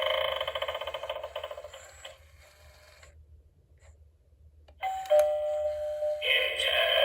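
Gemmy Red Eyeball Doorbell, a battery-powered Halloween novelty doorbell, playing its sound effects through its small speaker. A fast-pulsing sound fades out over the first two or three seconds. After a short pause, a two-note chime falling from a higher to a lower note starts suddenly, followed by a fuller, louder sound.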